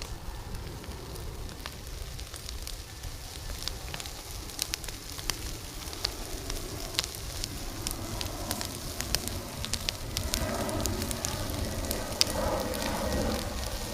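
Bonfire of contaminated beehive parts with their beeswax burning, crackling with many sharp pops; the fire grows louder in the second half.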